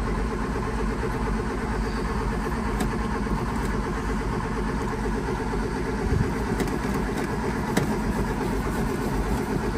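Morris Minor pickup's four-cylinder petrol engine idling steadily on the choke, just after a cold start following months of standing.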